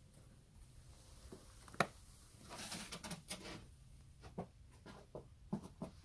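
Faint, uneven crunching of footsteps in fresh snow, with a sharp click about two seconds in.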